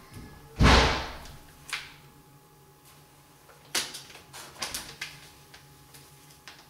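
Clear transfer tape being peeled off a vinyl wall decal: a sudden loud rustle just under a second in that fades over about half a second, then several shorter crackles of the plastic sheet as it is pulled away from the wall.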